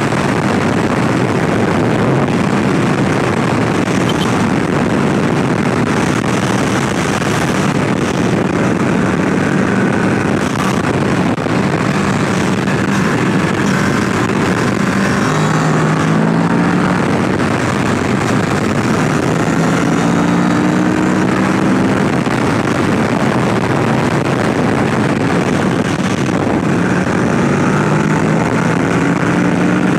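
Kawasaki Ninja 650's parallel-twin engine running while the bike is ridden. Its note shifts up and down several times with throttle and gear changes, under a loud, steady rush of wind and road noise.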